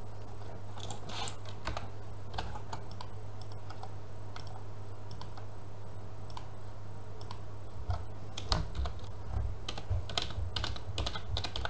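Typing on a computer keyboard: scattered keystrokes, sparse through the middle and coming faster in the last few seconds, over a steady low hum.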